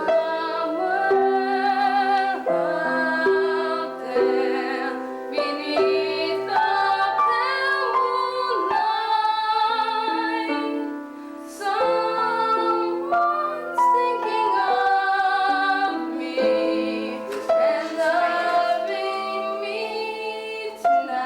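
A woman singing a slow song with piano accompaniment, her voice wavering with vibrato over held piano chords.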